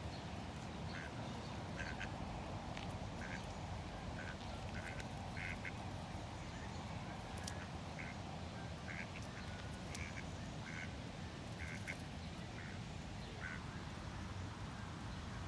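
Ducks quacking in short, irregular calls, several to a second, over a steady low background rumble.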